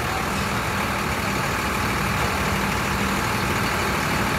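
Diesel engine of a large coach idling steadily, a low even hum with a constant wash of engine noise over it.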